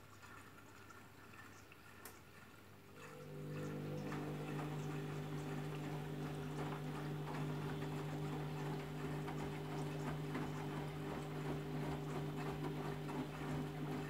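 Candy Grand'O Vita washing machine taking in water for the rinse: about three seconds in, a steady hum starts along with water rushing and splashing into the drum.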